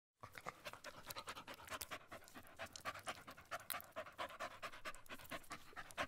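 Faint, quick, even panting of a Siberian husky.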